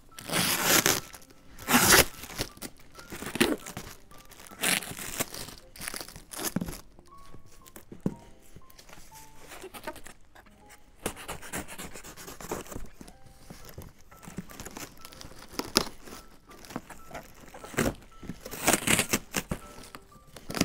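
Packaging being cut and torn open: blue plastic wrap, tape and cardboard ripped and crinkled off a long box in irregular bursts, loudest in the first two seconds and again near the end.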